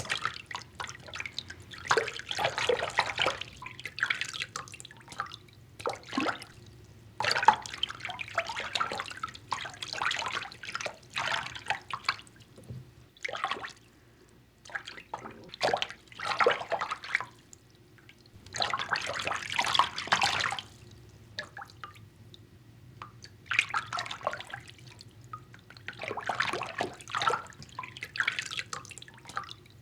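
Bathwater in a tub being moved and sloshed, in irregular bursts of splashing and dripping with short pauses between them.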